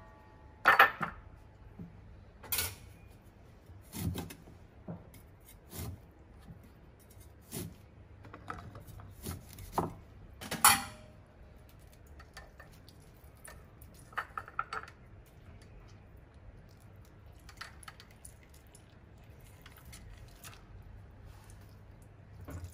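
Knife cutting kumquats in half on a wooden chopping board: separate sharp knocks every second or two for about eleven seconds, then softer, scattered clicks and handling noises as the fruit is squeezed over a metal mesh strainer.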